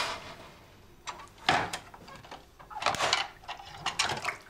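Kitchen clatter: several separate knocks and bumps of crockery and utensils being handled on a worktop, with a cluster of clatters near the middle.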